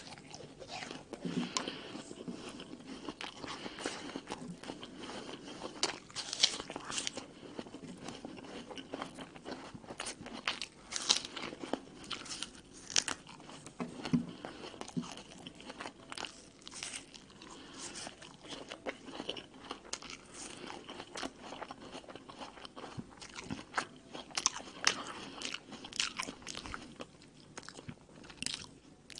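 Someone chewing crisp raw red apple, giving many small crunching and crackling bites that go on through the whole stretch.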